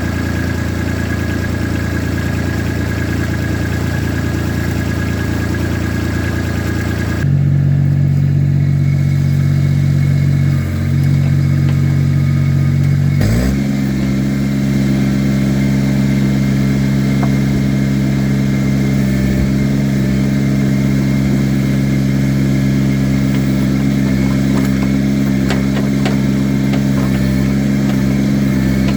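Engine of a work machine running steadily, its note changing abruptly about seven seconds in, then rising to a higher steady speed about thirteen seconds in.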